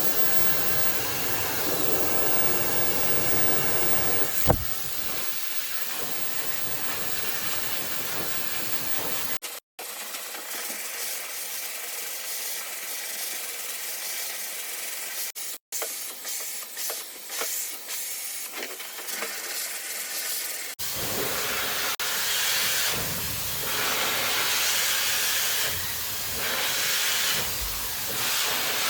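Slopehill professional hair dryer blowing hot air, a steady loud rushing hiss that swells and dips in its last several seconds, with a single sharp click about four and a half seconds in.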